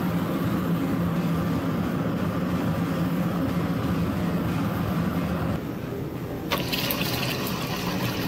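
Gas forge burner running with a steady rush. About six and a half seconds in, it gives way to a loud sizzling hiss with crackles as hot railroad spike steel is quenched in a bucket of water.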